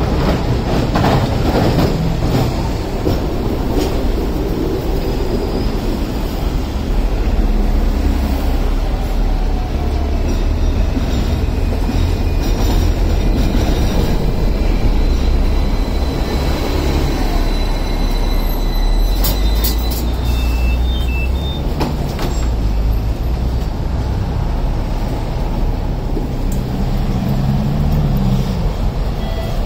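Hong Kong double-decker electric trams rolling along street tracks and drawing up at a stop, with a steady low rumble of wheels and motors over road traffic. A thin high whine sounds about halfway through.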